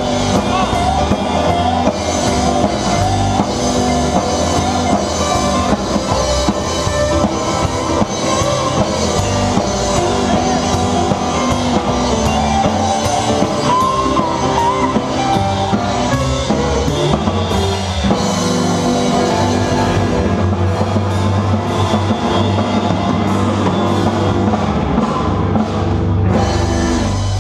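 A live band playing loud blues, with a drum kit and electric guitar.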